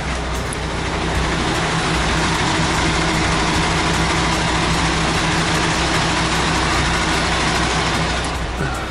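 Diesel engine of a truck tractor unit running steadily, with a louder rushing noise over the engine from about a second in until just before the end.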